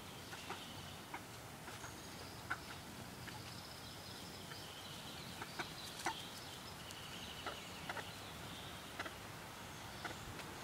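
Backyard hens clucking and calling, with short sharp clucks scattered through; the loudest comes about six seconds in.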